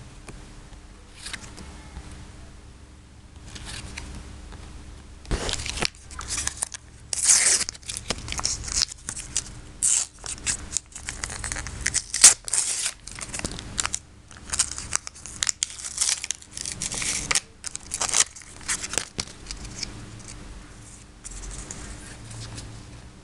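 A Topps sticker packet being torn open and crinkled by hand: a run of sharp ripping and rustling that lasts over ten seconds, loudest near the middle, with quieter rustling of stickers before and after.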